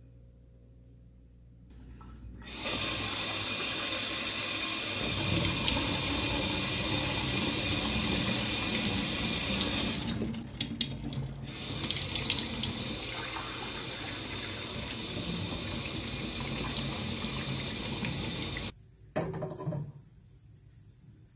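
Water tap running into a sink. It turns on about two seconds in, runs steadily, drops off briefly around the middle, and is shut off near the end, followed by one short last burst of water.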